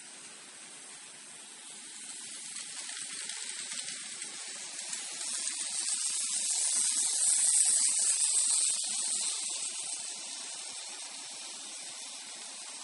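Model freight train behind Seaboard Air Line FT diesel units running on the track. It makes a high, hissing rush of wheels and motor that swells as the train approaches, is loudest about seven or eight seconds in as the locomotive passes, then eases off as the cars roll by.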